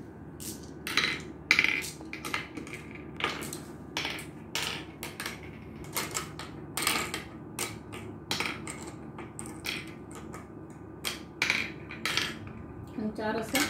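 Glass marbles dropped one by one into the pits of a wooden gurpale (mancala) board as the pieces are sown around it: sharp, irregular clicks and clacks, about one or two a second.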